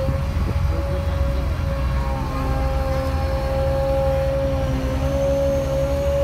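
Diesel engine of an RNLI Supacat launch and recovery tractor running as the tracked tractor moves on the slipway. A steady low rumble, with a steady high whine over it.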